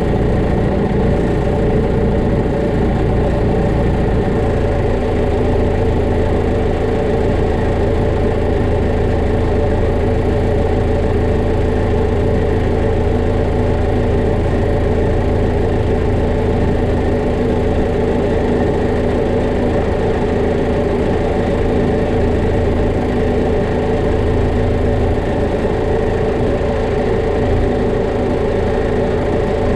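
Tractor diesel engine running steadily at idle, heard from the driver's seat.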